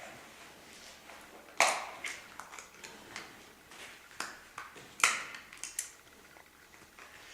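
Sharp taps and clicks in a small room, with two louder knocks, one about a second and a half in and another about five seconds in.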